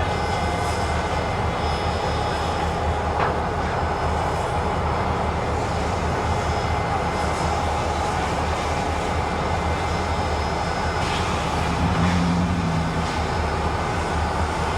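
Milwaukee Road 261, a 4-8-4 steam locomotive, giving off a steady low rumble with a hiss over it, while a faint low tone sounds briefly near the end.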